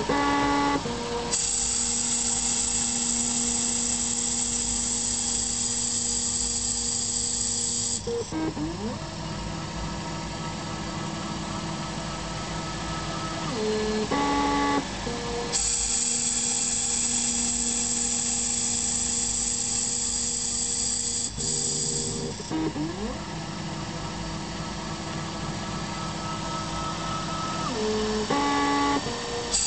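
Emco Compact 5 CNC lathe running a turning programme. Twice, a cutting pass of about six seconds gives a hiss over a steady motor whine. Each pass ends in sweeping, then stepped, whines as the axis motors move the tool back into position.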